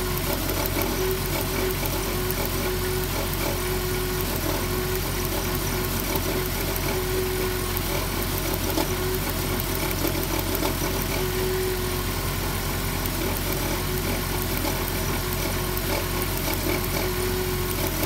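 2007 Dodge Grand Caravan's V6 idling steadily with an intermittent misfire, caused by a spark plug wire arcing through its damaged boot.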